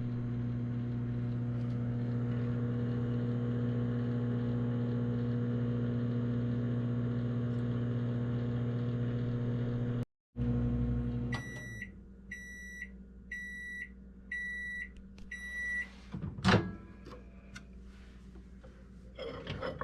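Microwave oven running with a steady hum while heating a mug cake. It then stops and gives a string of about six short high beeps, roughly one a second, to signal the end of the cooking time. A sharp clack and a few lighter knocks follow.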